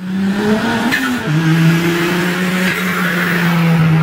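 Car engine running hard at high revs. Its pitch climbs slightly, drops sharply about a second in, then holds steady.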